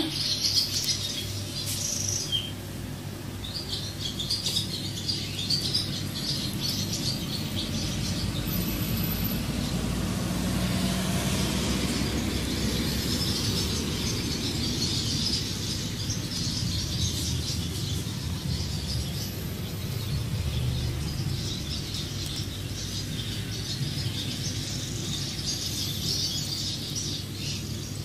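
Swallows chirping and twittering continuously, many calls overlapping, over a steady low rumble of street traffic.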